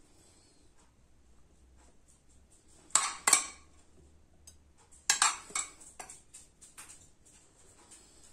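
A metal spoon clinks and scrapes against a ceramic plate and a pot while diced vegetables are spooned out. There are two sharp clinks about three seconds in, then a few more, fainter, between about five and seven seconds.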